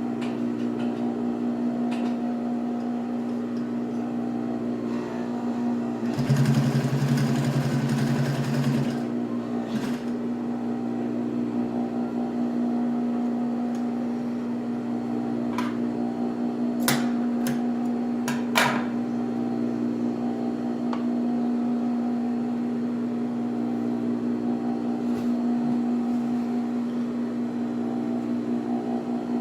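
Tacsew 5550 industrial sewing machine's clutch motor humming steadily. About six seconds in, the machine runs for roughly three seconds, louder, stitching through layers of imitation leather. Later come a few sharp clicks.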